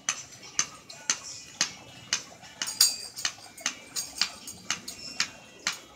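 Steady wooden taps, about two a second, of a stick beating time on a wooden pound-a-peg toy, with a brief bright jingling rattle about halfway through.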